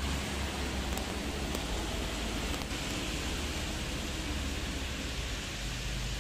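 Steady hiss of rain with a low bus engine rumble underneath; the rumble dims about two-thirds of the way through and returns near the end.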